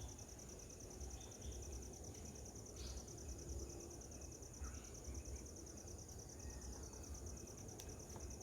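Insects trilling steadily in a continuous high-pitched, finely pulsing chorus, with a low rumble of background noise beneath.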